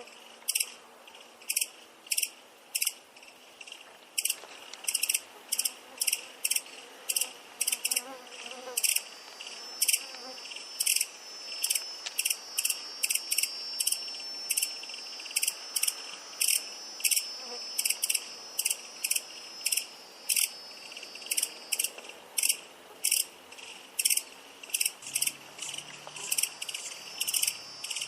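Grasshopper singing: short, sharp, high-pitched chirps repeated about twice a second. A second, steady high insect trill joins in under the chirps for roughly the middle half.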